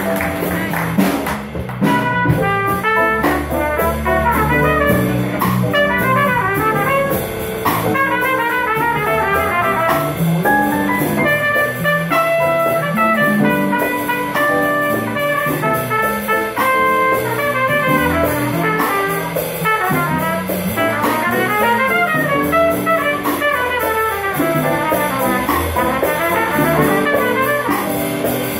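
Live jazz combo playing: a trumpet solos in quick runs of short notes over electric bass, keyboard and congas.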